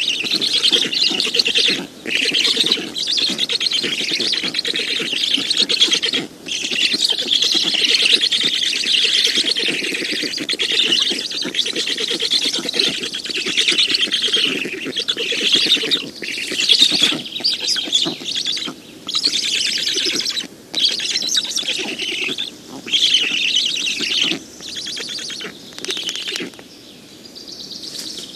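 Black stork nestlings calling in a continuous, rapid, rasping chatter, broken by short pauses every few seconds and fading near the end.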